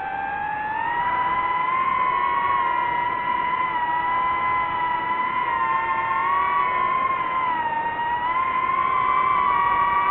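DJI FPV drone's motors and propellers whining steadily, the pitch rising and dipping slightly with changes in throttle.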